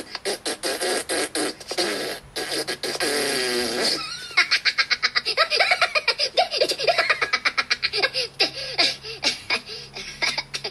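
Cartoon Minion voices playing from a phone: fast, high-pitched gibberish chatter and giggling, with one held, wavering note about three seconds in.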